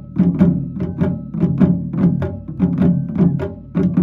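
Japanese taiko ensemble striking wadaiko drums with wooden sticks in a fast, steady, driving rhythm with recurring loud accents. A thin line of held high notes runs above the drums.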